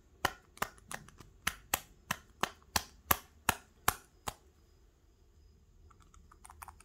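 A quick run of small sharp clicks, about three a second, from a Pollux 7 tubular lock being worked in the hands to free a pin from it. The clicking stops a little past halfway.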